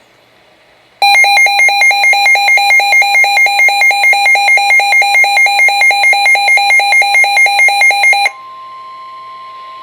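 A weather radio receiver's built-in alert alarm beeping loudly in quick pulses, about four a second, for roughly seven seconds: the sign that the radio has picked up an alert. It cuts off suddenly, and a quieter steady single tone follows, the NOAA Weather Radio 1050 Hz warning alarm tone.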